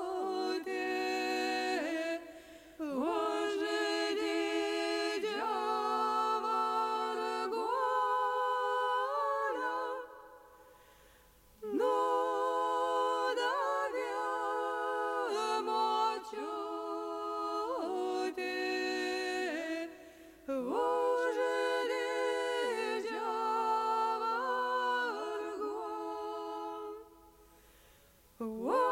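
Lithuanian folk ensemble singing unaccompanied, several voices together. The song goes in phrases broken by brief breaths, with a longer pause about ten seconds in and another near the end.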